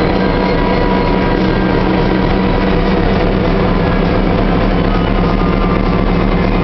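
Diesel locomotive engine running steadily and loudly, with faint thin whining tones above the rumble, from a turbocharger that is failing.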